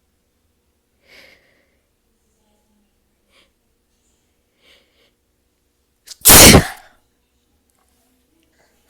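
A person's loud sneeze about six seconds in, a short catch followed at once by the full blast, after a few faint breaths.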